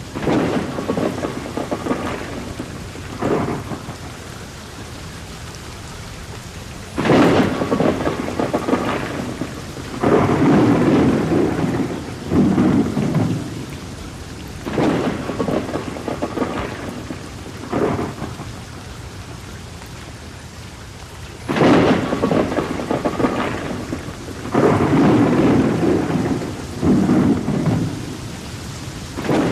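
Steady rain falling, with repeated rolls of thunder rising over it. The loudest rolls come about seven seconds in and again about twenty-one seconds in.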